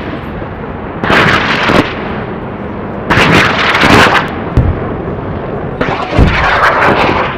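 Intro sound effect: a steady rushing roar that swells into three loud whooshing bursts, about two and a half seconds apart, with deep booms under the last two.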